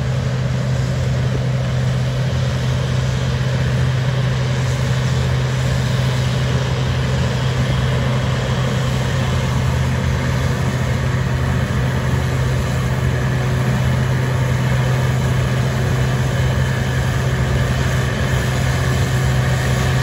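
Heavy diesel engine of a farm vehicle running steadily at a constant speed, a low even drone heard from inside the cab.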